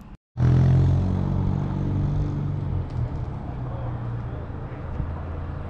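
Car engine idling, a steady low note that starts abruptly after a moment of silence and is loudest in the first second.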